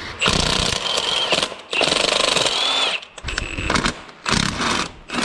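Cordless impact wrench hammering in about five short bursts, with a rapid rattling pulse and a motor whine that rises and falls within each burst.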